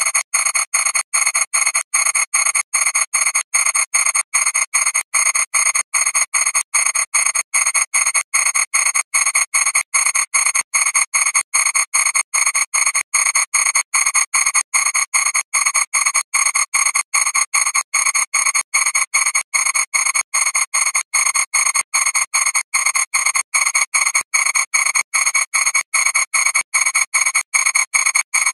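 Audio worn down by more than ten thousand repeated re-encodings: a harsh buzzing noise chopped into rapid even pulses about three times a second, with the bass gone and steady high-pitched whines above it.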